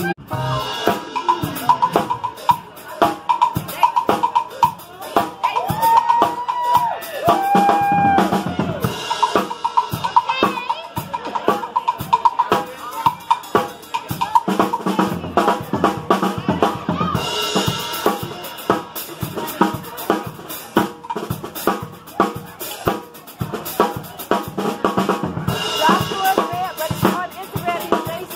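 Acoustic drum kit played live in a steady, busy groove with fills, hitting the bass drum, snare and cymbals many times a second.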